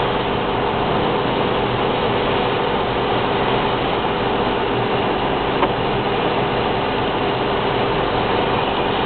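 Steady road and engine noise inside a car's cabin at motorway speed, with tyres running on a wet road. A single small tick about halfway through.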